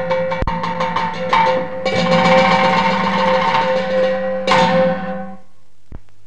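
Teochew opera percussion ensemble with a held instrumental note: rapid wood-block strokes, then loud crashes about one and a half and two seconds in and again about four and a half seconds in, ringing out and stopping suddenly about five and a half seconds in. A single sharp knock follows near the end.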